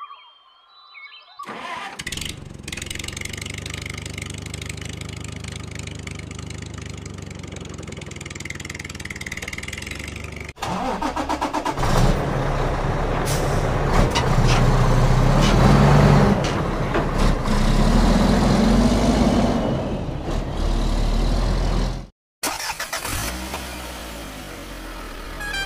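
Motor-vehicle engine sound effects: an engine starts and runs steadily. About ten seconds in, it cuts to a louder engine revving up and down. That stops suddenly a few seconds before the end, and a different engine sound begins.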